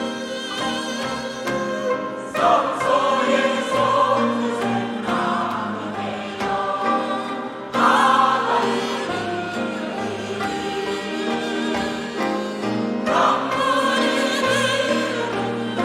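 A gugak (Korean traditional music) church choir singing a hymn over instrumental accompaniment, with full choral phrases coming in about two, eight and thirteen seconds in.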